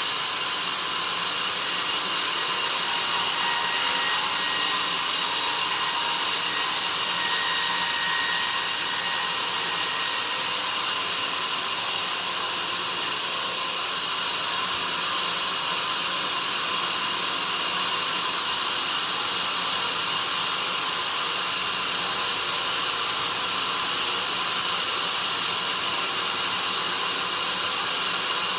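Sawmill band saw cutting through a log: a steady high hiss that rises about a second and a half in and eases slightly about halfway through.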